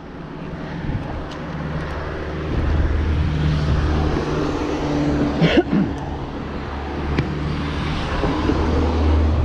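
A car engine running slowly close by, getting louder over the first few seconds and then holding steady, with a short sharp sound about halfway through.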